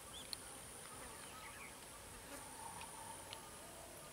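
Faint grassland ambience: a steady, high-pitched insect drone with faint, scattered bird chirps.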